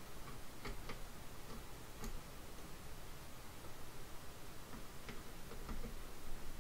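Faint, irregular clicks and ticks of a screwdriver turning the spring-loaded mounting screws of a CPU cooler on a motherboard, a few at a time.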